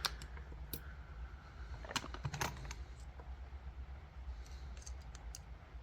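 Sparse, irregular small metallic clicks and taps from lock picks working in a cheap motorcycle lock, with a few louder clicks about two seconds in and fainter ones near the end.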